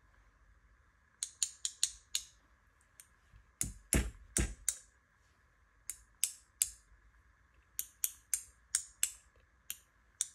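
Two paintbrushes tapped against each other in quick runs of three to six sharp clicks, spattering shimmer watercolour onto a paper card. The run about four seconds in is the loudest.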